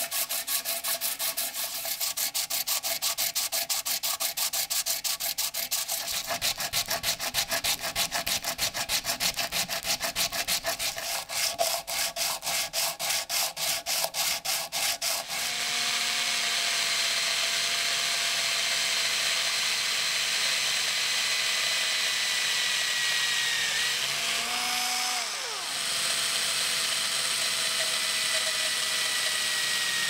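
A small steel knife part rubbed back and forth by hand on sandpaper over a wood block, in rapid rhythmic strokes. About halfway through, this gives way to an electric drill's steady whine as a thin bit bores through a steel handle plate and brass liner. The whine's pitch slowly falls, then briefly drops and picks up again twice.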